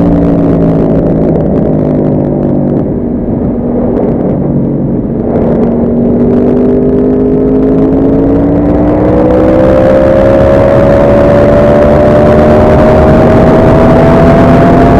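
Yamaha R1's inline-four engine heard on board, the pitch falling as the bike slows over the first few seconds, then rising steadily from about five seconds in as it accelerates. The rush of wind grows louder as speed builds.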